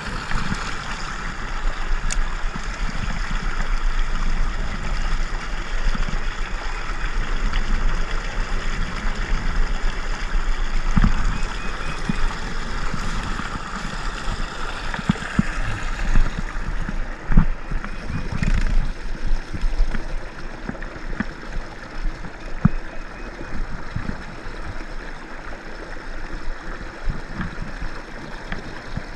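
Strong wind buffeting the microphone in irregular gusts, with a steady rushing noise underneath.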